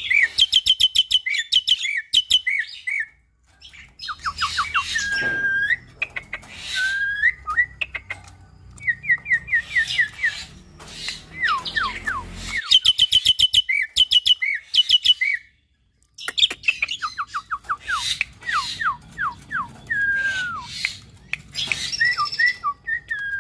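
Hybrid myna, a Nias hill myna × Asian pied starling cross, singing a varied song: fast runs of sharp high clicking notes alternating with whistles that slide down in pitch, in phrases broken by short pauses.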